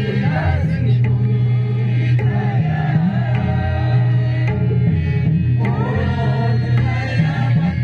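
A group of voices singing a song together into a microphone, accompanied by an acoustic guitar, amplified over a PA loudspeaker.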